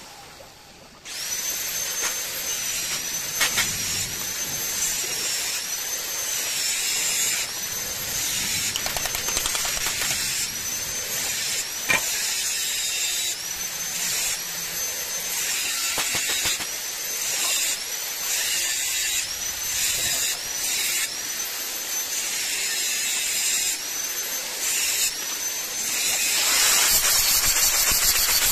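Electric hand drill run in many short trigger bursts, its high whine rising as it spins up and dropping each time it is released. Near the end it runs louder and rougher.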